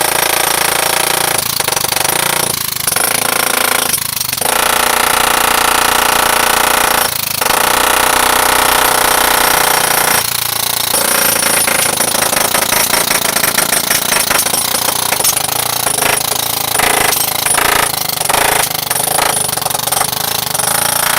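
Pneumatic jackhammer hammering at a sheet pile's surface as it is prepared, running loud and continuous with several brief breaks in the first half.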